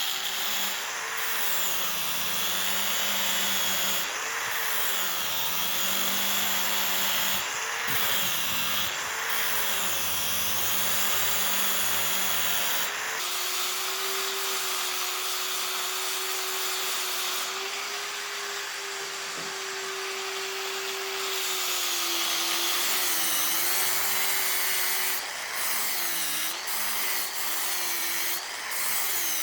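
An electric power tool's motor running against material, its pitch dipping and recovering again and again as it is loaded. About halfway through it runs steadily for several seconds, then begins dipping again.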